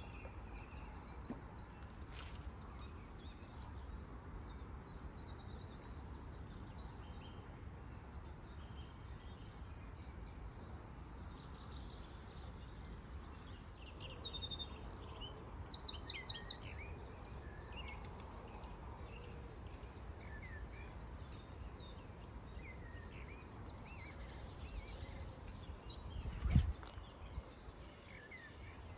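Small birds chirping and singing over a steady low wind rumble on the microphone, with a louder run of quickly repeated notes about halfway through and a single low thump near the end.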